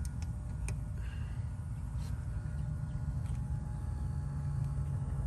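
Low steady background rumble with a few faint clicks of wire spade terminals being handled and pushed onto an air-conditioner contactor.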